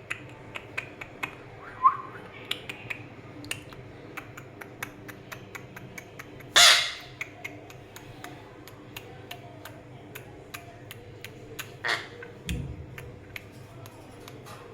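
Red-breasted parakeet giving a loud harsh squawk about six and a half seconds in and a shorter one near twelve seconds, with a short chirp about two seconds in. Light clicking runs underneath, and a low thump follows the second squawk.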